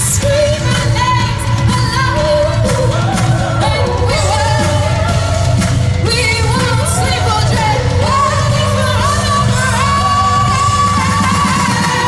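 Live concert music: a woman singing a pop-rock song into a microphone over a full band with drums and guitars, heard from the audience through the arena's PA.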